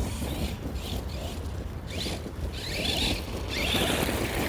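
Arrma Granite 4x4 3S BLX brushless RC car driving on gravel, its tyres crunching and spraying gravel in hissing surges, louder about three to four seconds in. Wind rumbles on the microphone underneath.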